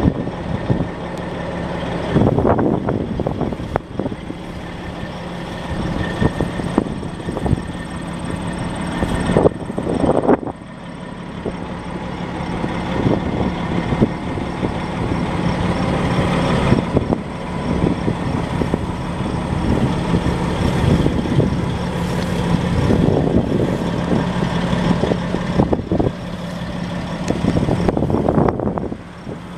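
Freightliner Columbia semi-truck's diesel engine idling with a steady hum, under an uneven rushing noise that swells and fades.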